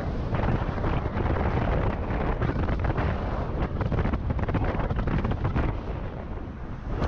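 Wind buffeting a GoPro Hero 7's microphone as an electric scooter rides along a city street, a rough, fluttering rumble that eases briefly near the end.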